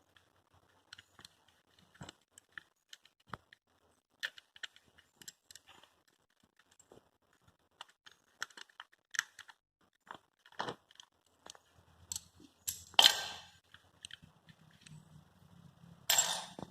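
Scattered light clicks and taps of hand tools and small metal parts being handled during motorcycle clutch disassembly, with a louder scraping clatter about thirteen seconds in and another near the end. A faint low hum comes in about twelve seconds in.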